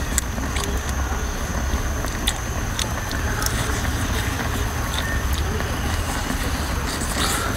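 Mantis shrimp shell being cracked and peeled by hand, a scatter of sharp clicks, then the meat sucked from it with a short hissing slurp near the end, over a steady low rumble.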